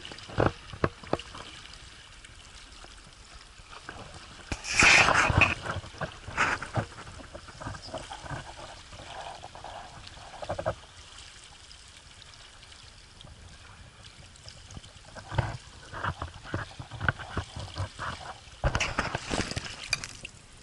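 Choppy river water splashing and slapping around a small inflatable boat, with paddle strokes in the water. The splashing comes and goes irregularly; the loudest splashes are about five seconds in and again near the end.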